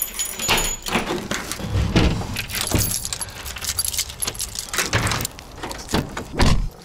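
A bunch of keys jangling and clicking in a door's knob lock and deadbolt as they are turned, then a car door handle being pulled, with a loud thump near the end.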